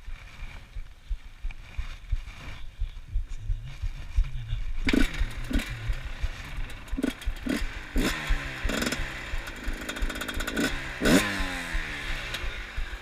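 A low rumble, then about five seconds in a two-stroke dirt bike engine comes in loud and close, revved in sharp blips and then climbing and falling in pitch.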